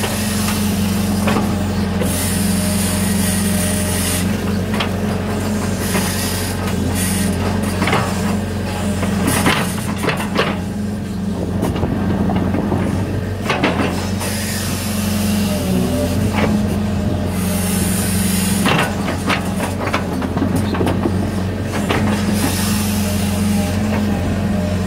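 Hitachi 60 excavator's diesel engine running steadily under working load, with a high hiss coming and going as the boom and bucket move, and scattered clanks as the bucket digs and dumps wet drain mud.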